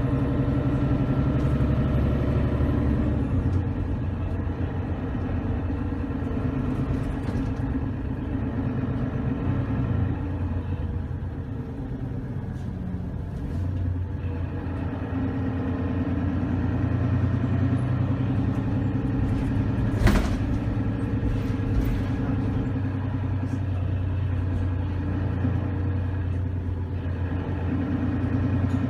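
Diesel engine of a single-decker bus running under load, its note swelling and easing as it pulls and backs off. A faint high whine fades out in the first few seconds, and a single sharp knock sounds about twenty seconds in.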